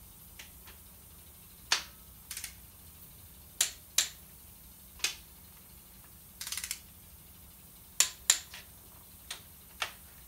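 Sharp metallic clicks and clinks of hand tools on cylinder head bolts being run down on a 383 big-block V8, a dozen or so spread out, with a quick run of four or five clicks about six and a half seconds in.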